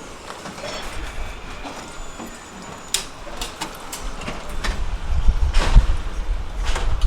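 Truck-mounted hydraulic crusher working: scattered metallic clanks and knocks, with a low rumble that builds and grows much louder from about halfway.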